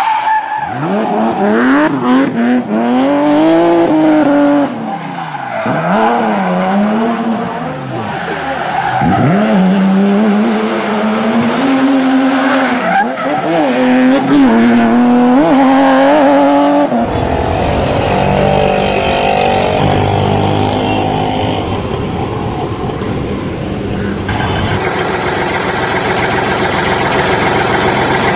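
Vehicle engine sounds revving up and down in pitch, then cutting abruptly at about 17 seconds to a steadier low engine rumble, which changes again near 25 seconds.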